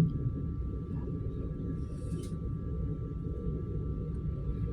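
Suburban electric train heard from inside the carriage: a steady low rumble of the wheels and running gear with a constant high electric hum, as the train pulls into a station.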